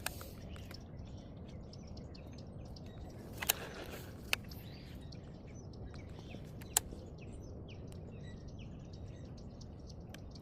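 Small birds chirping over a steady low rumble of outdoor background noise, broken by a few sharp clicks or knocks, the loudest about three and a half and seven seconds in.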